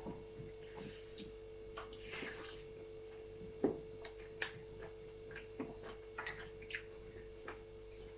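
Eating noises: scattered soft clicks and wet smacks of chewing a meal of curry and rice, a little louder about four seconds in, over a steady faint hum.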